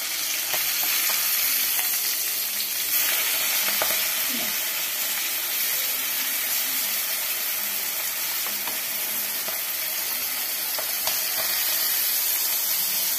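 Masala-coated sardines sizzling steadily in hot coconut oil in a pan, with a few light scrapes and taps of a wooden spatula as the fish are turned over.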